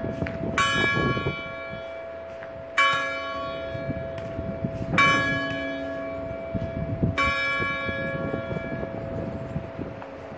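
Single chapel clock bell striking the hour: four strokes about two seconds apart, each ringing on and fading, with a steady hum carrying between them.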